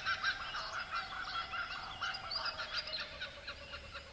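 A chorus of frogs calling in many rapid, overlapping pulses, gradually fading.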